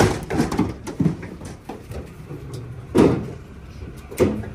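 Metal clatter and knocks of an aluminium livestock trailer as cattle walk down its ramp and hooves strike the floor, with two louder bangs about three and four seconds in.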